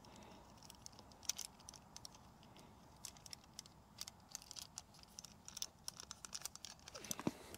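Faint, scattered clicks and scrapes of a plastic tip guard and spray tip being handled and fitted onto an airless paint spray gun. A brief pitched sound comes near the end.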